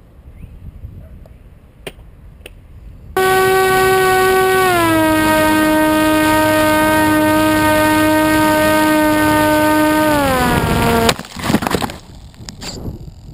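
Electric RC plane's motor and propeller whining loudly from close up, dropping a step in pitch as it is throttled back, then winding down and cutting off suddenly, followed by a few knocks and rustles as the plane comes down in the grass.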